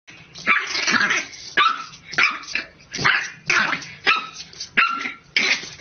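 Bulldog puppy barking at its own reflection in a mirror: about eight short, yappy barks in a row, roughly one every two-thirds of a second.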